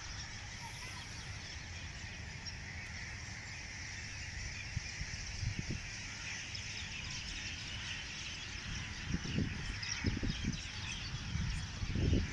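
Many birds chirping together in an evening chorus, a dense steady chatter. Underneath is a low rumble, with a few low bumps in the last few seconds.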